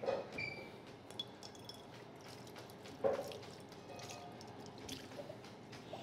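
Chef's knife chopping green onions on a plastic cutting board: light scattered taps, with two louder knocks of the blade on the board, one at the start and one about three seconds in.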